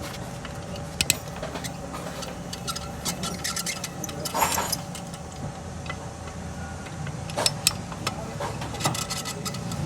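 Suzuki Mehran engine running steadily, with a continuous hum and whirr from the alternator, whose worn bearings are the cause of the noise. A few sharp clicks come over it.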